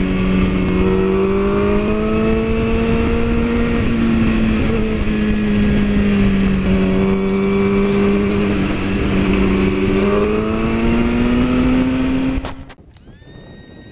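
Sportbike engine running at a steady road speed, with wind rush on the microphone; its pitch rises and eases gently a couple of times. Cuts off suddenly near the end, giving way to quieter music.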